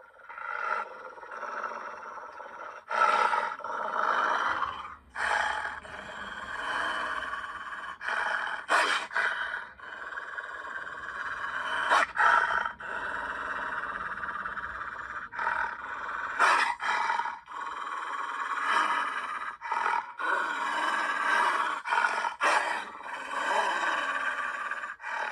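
A string of cartoon wolf growls, snarls and roars from an animated film's sound effects, spliced together with abrupt cuts every second or few.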